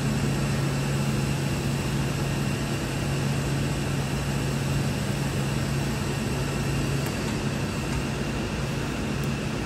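Steady machinery hum of a factory floor: a constant low drone with a faint high whine above it. The low drone weakens about seven seconds in.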